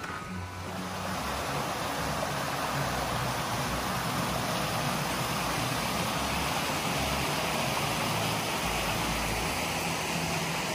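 Mountain stream rushing over rocks, a steady, even rush of water that swells slightly about a second in.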